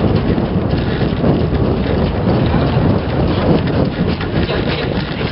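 Dense rustling and rumbling on a camera microphone carried by a moving person, with irregular knocks throughout.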